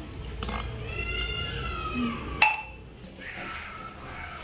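A single sharp metallic clink with a short ringing tail, a steel tumbler knocking against the aluminium cooking pot. Before it a high, drawn-out call falls in pitch in the background.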